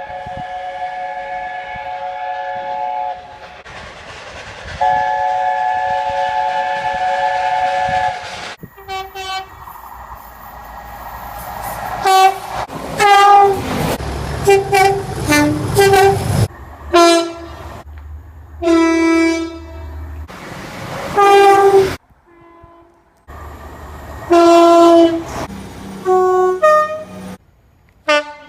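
Railway train horns in several clips cut together. First a multi-note chord horn sounds two long blasts. Then come many short blasts of two-tone horns, alternating high and low notes, with the low rumble of a train under some of them.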